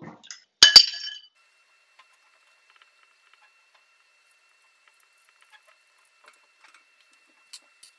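A sharp metallic clink of copper pipe, two quick strikes with a brief ringing, about a second in, as a handheld tubing cutter parts the pipe. After that only a few faint small clicks from handling the fittings.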